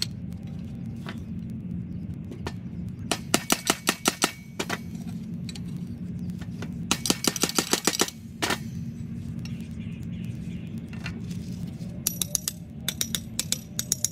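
Claw hammer striking in three quick runs of light, ringing taps, about eight blows a second, while making a machete handle. A steady low hum runs underneath.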